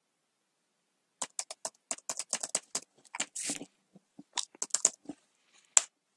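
Typing on a computer keyboard: a quick, irregular run of key clicks that starts about a second in, with one louder click near the end.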